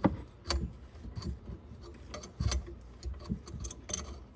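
Irregular metallic clicks and knocks, about eight in all, as a tool works on a faucet water supply-line connection to snug it tight.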